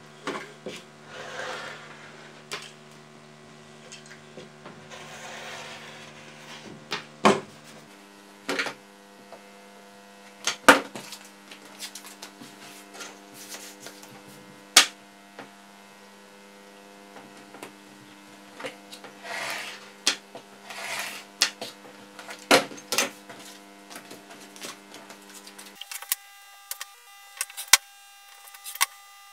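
A blade drawn along a steel ruler through printed card stock on a cutting mat, heard as several short hissing strokes, with sharp knocks and clicks as the metal ruler and paper pieces are set down and moved. A steady electrical hum lies underneath.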